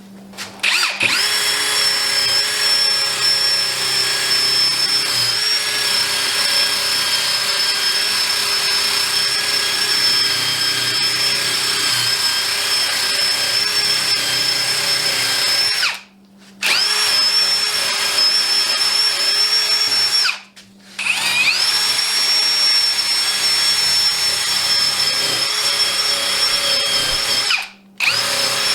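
Drill spinning a brass wire wheel, scrubbing dried wood glue off the steel ridges and sides of a woodworking clamp. It runs with a steady high whine, stops briefly three times and spins back up each time.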